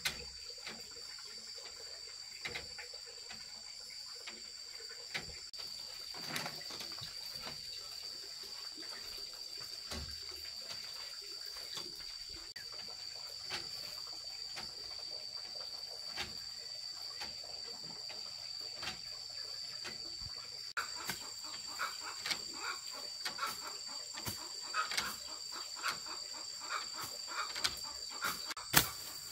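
Rural outdoor ambience: a steady high insect drone with scattered light clicks and knocks, then from about two-thirds of the way in, birds chirping in short repeated calls.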